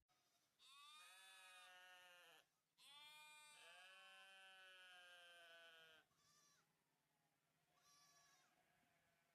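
Sheep bleating: two long, drawn-out bleats one after the other, then two shorter, weaker bleats near the end.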